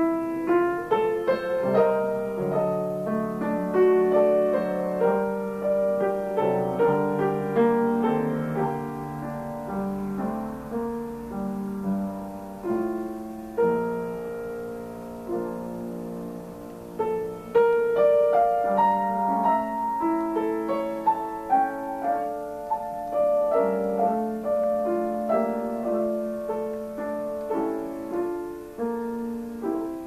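Grand piano played solo: a classical piece with a steady flow of notes, easing off briefly about halfway through before picking up again.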